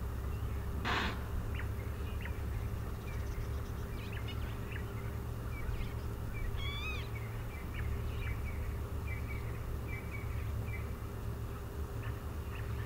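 Morning bush ambience of wild birds: many short chirps scattered throughout, a short rasping call about a second in, and a clear pitched call near seven seconds, over a steady low rumble.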